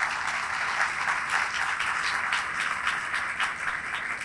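Audience applauding: dense, steady hand-clapping that begins to thin out near the end.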